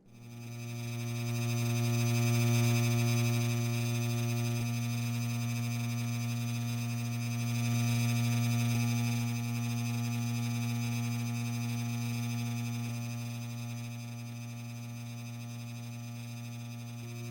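Noisy ceiling fan motor humming loudly with a steady low electrical drone and a thin high whine above it. It comes on at the start and swells over the first couple of seconds, then holds steady.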